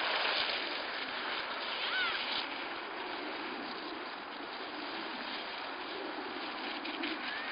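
Steady outdoor noise, like wind across the microphone, with a short distant shout about two seconds in and another faint one near the end.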